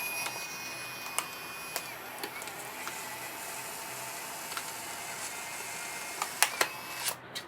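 Instant camera being loaded with a fresh film pack: a steady mechanical whir with a thin tone in the first couple of seconds, broken by several sharp clicks of the camera's mechanism.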